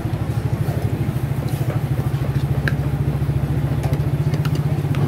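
Motorcycle engine idling steadily with an even, rapid pulse, with a few faint light clicks over it.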